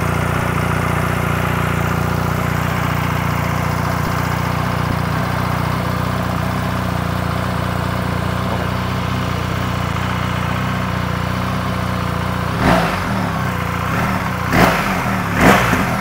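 BMW R 1300 GS boxer-twin engine on its stock exhaust, idling steadily, then blipped three times near the end with short revs.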